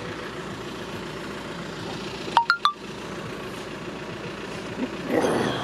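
Steady low hum of road traffic with a car idling, broken about two and a half seconds in by three quick metallic clinks, each with a short ring, and by a brief rush of noise near the end.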